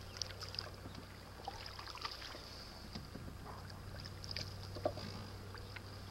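Canoe paddling on calm water: soft paddle dips and drips with scattered light clicks and knocks, over a steady low hum.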